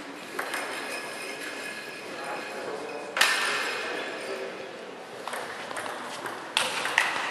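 Table tennis ball clicking off bats and the table, with one sharp knock about three seconds in. A rally of quick strokes follows from about five seconds in, the clicks echoing in the large hall. Voices murmur in the background.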